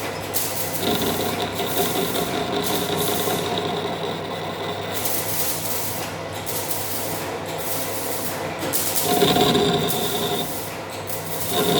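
Metal lathe running while a cutting tool turns the end of a cart axle: a steady machine hum with a constant high whine over the scrape of the cut. The cut gets louder for a moment about nine seconds in.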